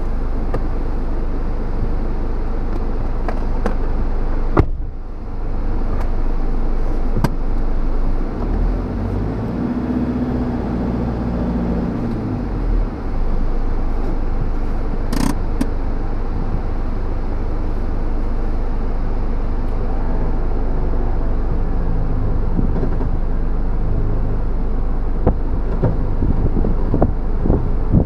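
A four-wheel drive's engine running steadily, heard from inside the cab, with a few sharp clicks.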